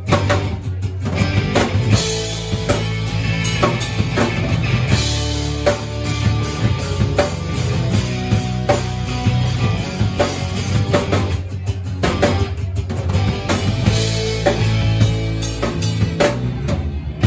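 Live rock band playing an instrumental passage: drum kit, bass guitar, electric guitar and strummed acoustic guitar, with a few short breaks where the band cuts out for a moment.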